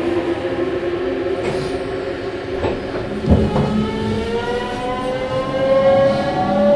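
Meitetsu 200 series electric train pulling away, its traction motor whine climbing steadily in pitch from about halfway through as the train gains speed. A couple of clunks come just before the climb.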